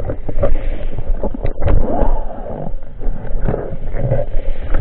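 Muffled underwater sound from a camera in a waterproof housing: water rushing and churning around it as a speargun diver swims, with scattered knocks and clicks.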